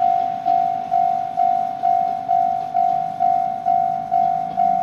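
Japanese railway level-crossing warning bell ringing, a single-pitched ding repeated about twice a second, each ding fading before the next. It signals that the crossing is closed for an approaching train.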